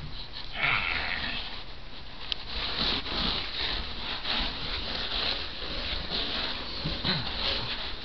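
Scratchy rustling of hands and a kitten scuffling on carpet during rough play, swelling and fading throughout, with a few faint short vocal sounds.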